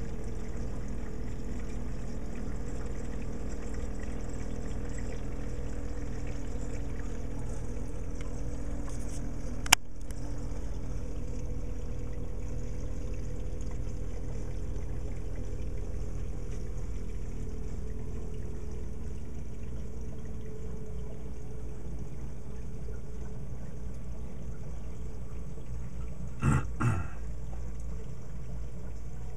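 A reef aquarium's running water: a steady trickle and pour of circulating water over the steady hum of its pumps. A sharp click comes about ten seconds in, and two quick knocks near the end.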